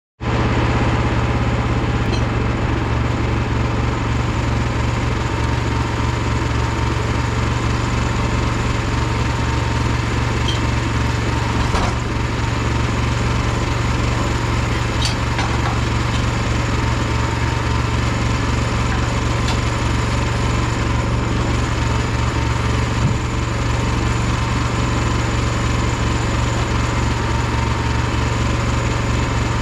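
A small engine running steadily at one constant speed, with a few faint ticks over it.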